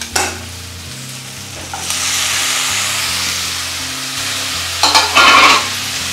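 Tomatoes going into hot oil with sautéed onions: a loud frying sizzle that swells in about two seconds in, with a short burst of a spoon stirring and scraping in the pan near the end.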